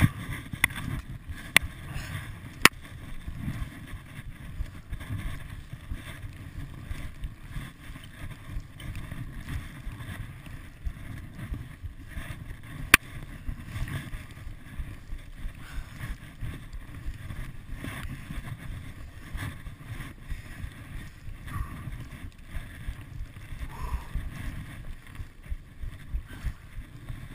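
Blizzard wind buffeting the microphone in an uneven low rumble, with a few sharp clicks in the first few seconds and once about halfway through.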